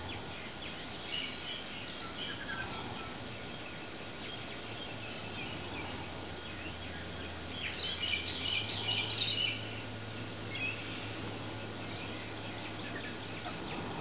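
Wild birds chirping and twittering in short high calls, busiest about eight to nine and a half seconds in, over a steady background hiss.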